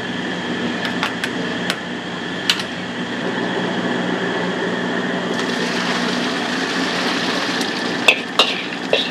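Stir-frying in a wok: a steady background roar, a few sharp clicks of a metal spatula against the wok in the first seconds, a sizzle that swells about five seconds in, then loud, sharp spatula strikes on the wok near the end.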